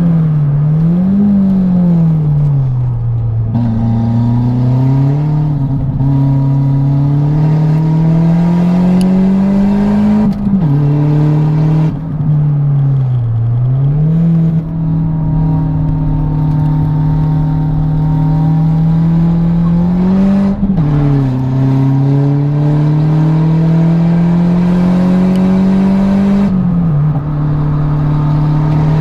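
Fiat Punto GT Turbo engine, heard from inside the cabin while being driven hard. The engine note climbs steadily in pitch as the revs build and drops sharply at each gear change, several times over.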